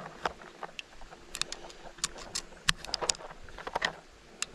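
9mm cartridges being pushed one at a time into a Ruger Security-9 15-round pistol magazine, making a series of sharp metallic clicks as the rounds go in.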